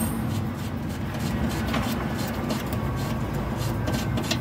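A 3/8-inch socket ratchet clicking in short, irregular runs as a bolt on a lower engine mount is unscrewed, over a low steady rumble.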